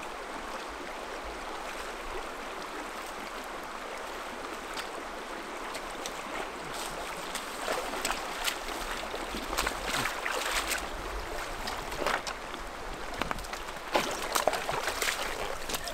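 Shallow creek running over rocks, with boots splashing through the water and a trekking pole planted in the stream bed as someone wades across. From about seven seconds in the splashes come louder and more often, in sharp separate strokes.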